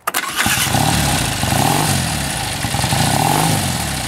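Electric starter on an 850cc Triumph twin motorcycle cranks for a split second and the engine fires straight away. The engine then runs with the throttle blipped, its revs rising and falling about every one and a half seconds.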